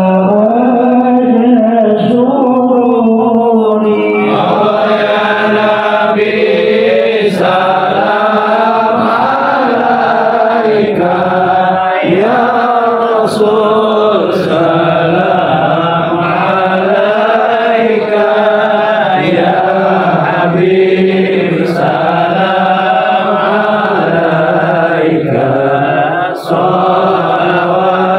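Devotional chanting of Arabic sholawat in praise of the Prophet: voices sing a slow line that wavers up and down in pitch, loud and unbroken.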